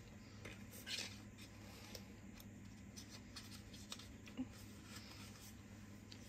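Faint, scattered small clicks and rustles of hands handling a small cosmetic product and its packaging, over a low steady hum.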